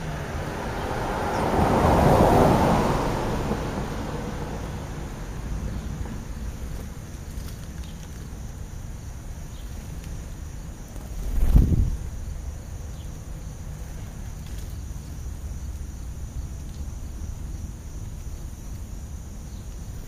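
Outdoor wind rumble on the microphone. A vehicle passes on the street, swelling and fading about two seconds in. Near the middle a brief gust buffets the microphone with a short low thump.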